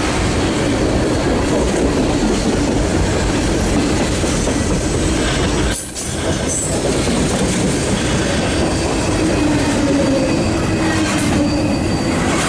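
CSX Q031 freight train's cars rolling past on the rails, a loud steady noise of wheels on track with a wavering wheel whine under it. The noise briefly dips about six seconds in.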